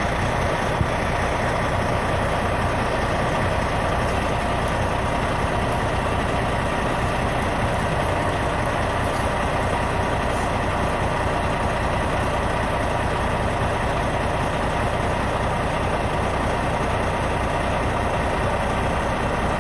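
Truck engine idling steadily close by, an unbroken low rumble.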